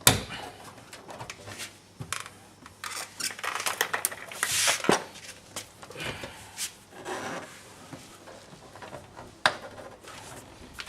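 Hard plastic clicking, knocking and scraping as a tight, clipped-in window switch housing is worked and prised at in a car's door trim. There are sharp knocks at the start and again near the end, with scraping and rubbing in between.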